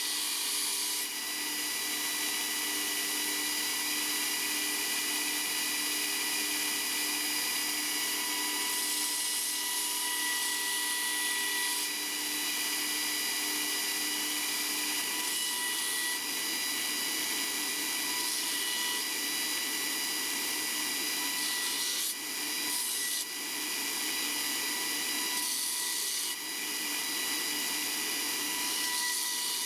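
A power tool running steadily with a high whine; its sound changes about halfway through, with a few short breaks later on.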